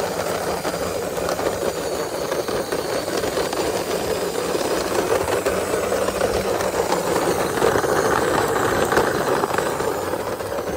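Plastic wheels of a hand-pushed toy car rolling over rough concrete and brick paving, a steady gritty rolling rattle. It grows a little louder past the middle and eases near the end.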